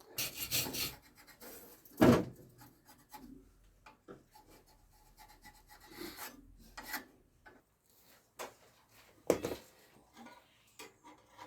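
Irregular scraping, rubbing and knocks from a cut steel patch for the exhaust being handled and shifted about. There are sharper knocks about two seconds in and again about nine and a half seconds in.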